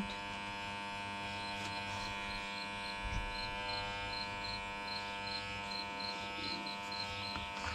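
Corded electric pet clipper running with a steady buzz as it is pushed through a long-haired cat's matted fur, cutting.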